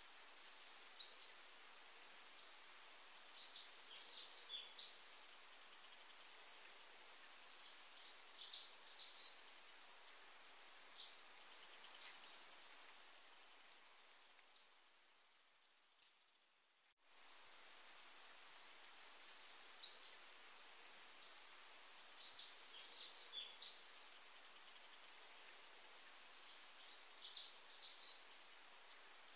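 Faint nature-ambience backing track: clusters of short, high bird chirps over a steady hiss. It fades out, then starts again abruptly about seventeen seconds in, the same stretch of chirps repeating.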